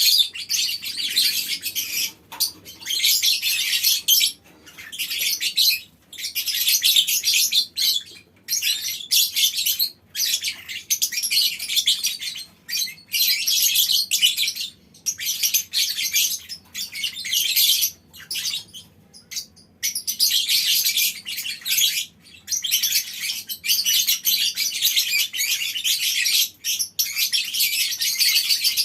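A colony of lovebirds chattering in long, shrill, rapid runs, the sustained trilling 'ngekek' call, each run lasting a few seconds with brief breaks between them.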